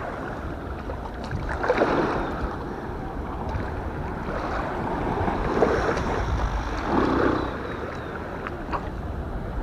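Wind noise on the microphone with small waves washing at the water's edge, swelling louder a few times.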